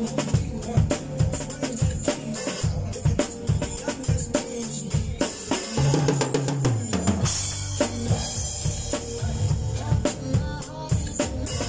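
Acoustic drum kit played with sticks in a steady groove, bass drum and snare driving the beat, along with a pop backing track whose bass line and sustained chords run beneath the hits. A rising sweep in the backing track comes in near the middle.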